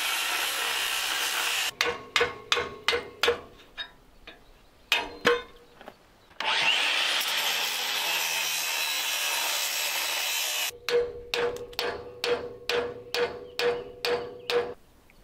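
Angle grinder cutting into an old wrought iron gate in two spells of steady grinding. Each spell gives way to a run of hammer blows on the iron, about two a second, each one ringing briefly. The hammer blows are the loudest sounds.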